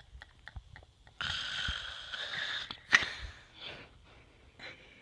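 A person snoring: one long snore starting about a second in and ending in a sharp, loud click near three seconds, followed by fainter short breaths.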